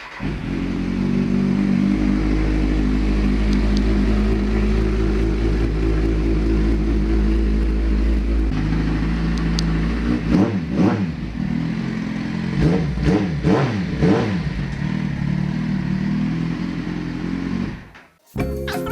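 Kawasaki Z1000 inline-four motorcycle engine running at a steady idle after an oil change. About halfway through it is revved in a few quick blips that rise and fall, then it settles again, and the sound cuts off near the end.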